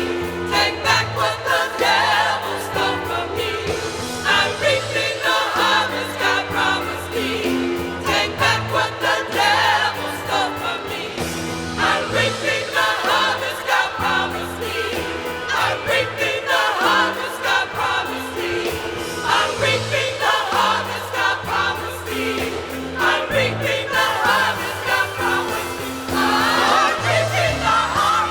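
Gospel choir singing with instrumental accompaniment, a bass line moving under the voices.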